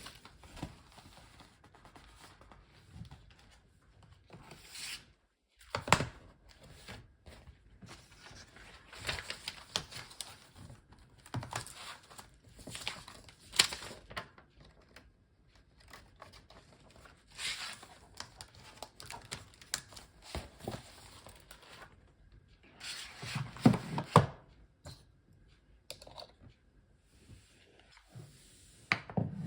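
Wrapping material handled by hand: irregular crinkling and rustling with some tearing, coming in short bursts with brief quiet gaps.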